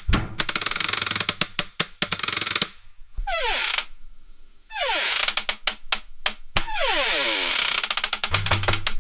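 Wooden barn door creaking open on its hinges: several long creaks, each a fast run of clicks with squeals that slide down in pitch, separated by short pauses.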